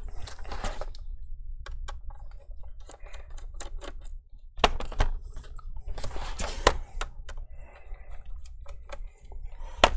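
Small clicks and taps of a precision Phillips screwdriver working the tiny screws along the bottom edge of a laptop's base, mixed with knocks of the laptop shell being handled on the table, over a steady low hum. The sharpest knocks come about five seconds in, at about seven seconds and just before the end.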